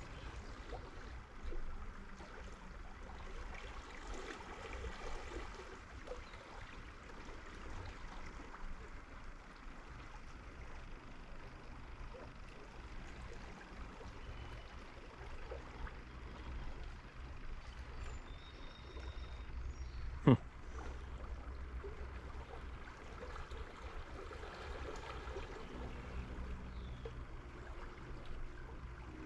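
Faint outdoor ambience with a steady low rumble, broken by a single sharp click about twenty seconds in.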